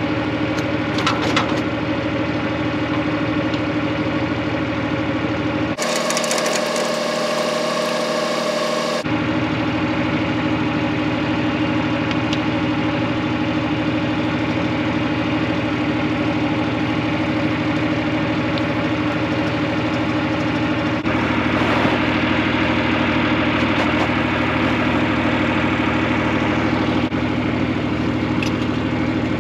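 John Deere tractor's diesel engine idling steadily, left running while the spreader is unhooked.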